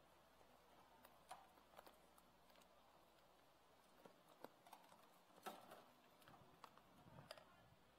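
Faint, scattered taps and scrapes of a plastic spatula against a stainless steel mixing bowl as buttercream is stirred; otherwise near silence.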